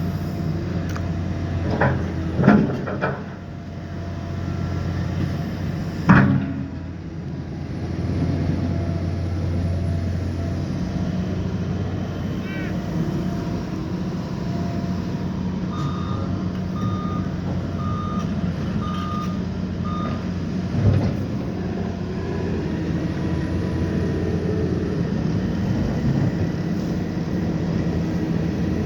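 Liebherr excavator's diesel engine running steadily while concrete slabs are broken up and moved, with several loud knocks of concrete on concrete or steel: a cluster near the start, a loud one a few seconds later and another later on. Midway, a reversing alarm beeps five times, about one beep a second.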